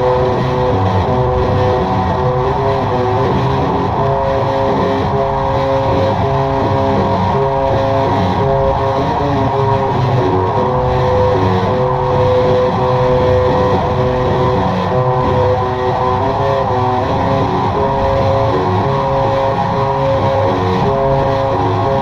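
Experimental drone music: thick, sustained droning guitar tones over a dense low rumble, with no voice.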